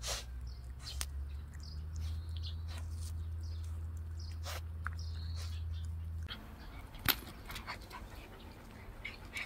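Jindo puppy sniffing and snuffling at a pulled-up weed root on pavement, with short sharp snuffs. Faint bird chirps sit above a low steady rumble that cuts off about six seconds in.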